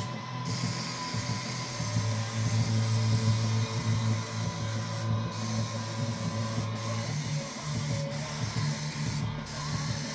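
Airbrush spraying paint: a steady high hiss that breaks off briefly a few times as the trigger is let go, over a steady low hum.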